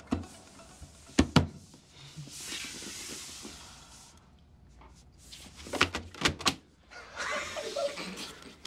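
Hands knocking and slapping on a wooden tabletop: a pair of sharp knocks about a second in and three more around six seconds, amid soft, hushed breathy sounds of stifled laughter.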